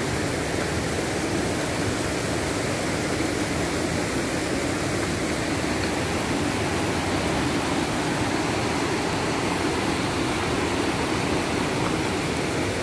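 A rocky stream rushing in white water over boulders. It makes a steady, unbroken noise.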